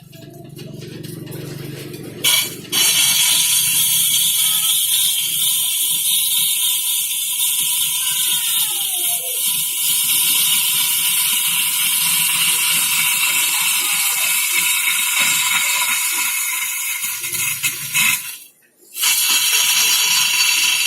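Wood lathe running while a turning tool cuts into spinning wood: a steady, loud hiss of shavings with a steady whine under it. It drops out briefly about two and a half seconds in and again near the end.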